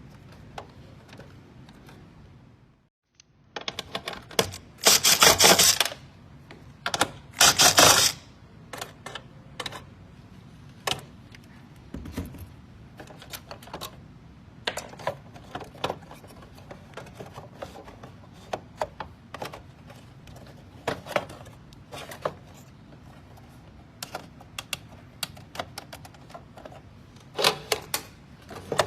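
Metal clicks, knocks and clatter of tools on washing machine parts during disassembly, with two loud bursts of rapid rattling clicks, each about a second long, around five and seven seconds in.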